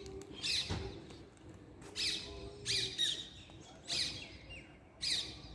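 Parrots screeching: about half a dozen short, harsh calls, each falling in pitch, at irregular intervals.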